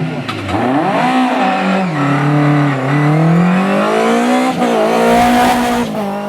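Historic rally car driven flat out, its engine revving hard with the pitch repeatedly climbing and dropping through throttle lifts and gear changes. A broad hiss of tyre noise comes about five seconds in.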